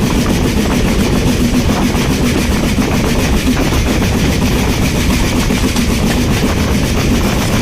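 BR Standard Class 4MT 4-6-0 steam locomotive 75069 working hard under way, a loud, steady run of rapid exhaust beats mixed with the rumble of the train on the rails.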